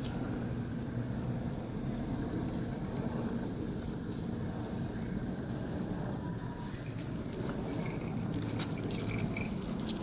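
Cicadas droning in one continuous, loud, high buzz. Its pitch sinks slightly through the middle and steps back up about six and a half seconds in.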